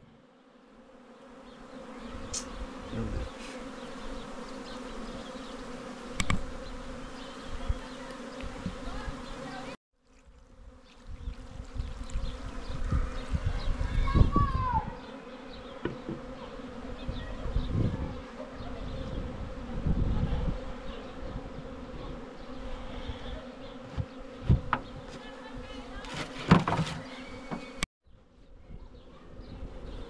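Honeybees buzzing in a steady low hum from an opened, crowded hive, with a few knocks from the hive being handled. The hum cuts out briefly twice.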